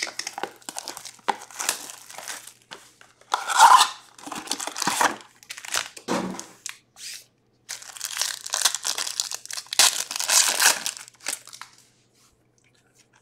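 Packaging of 2021-22 Upper Deck Allure hockey cards being torn open and crinkled by hand, in irregular tears and rustles that stop near the end.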